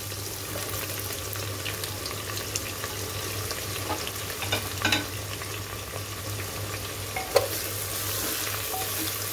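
Sliced onions sizzling as they fry in hot mustard oil in a pressure cooker, stirred with a wooden spoon, with a few light knocks near the middle and a couple of seconds later.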